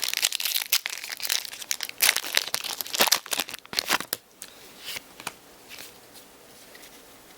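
A trading-card booster pack wrapper crinkling and tearing as it is opened, a dense run of crackles for about four seconds, then only a few faint clicks as it is handled.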